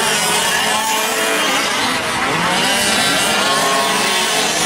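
Several fifth-scale gas RC trucks' small two-stroke engines running together on track, their pitches overlapping and rising and falling as they rev on and off the throttle.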